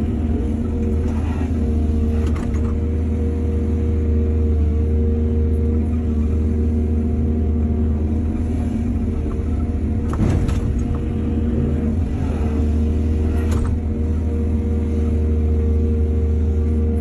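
Excavator's diesel engine running steadily at working revs, with a few sharp metallic clanks or knocks, the strongest about ten seconds in and another near the end.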